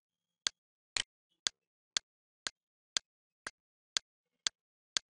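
A ticking sound effect played back: sharp, evenly spaced ticks, two a second, starting about half a second in.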